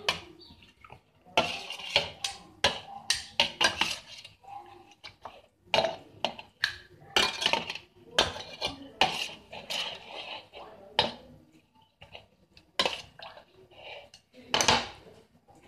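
Cutlery clinking and scraping against a dish in a quick, irregular series of strikes, as a marinade is mixed.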